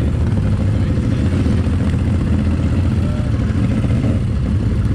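ATV engine running at a steady, moderate speed while riding.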